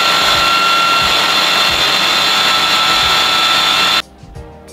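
Small electric food processor running steadily at full speed with a high motor whine, then switching off abruptly about four seconds in.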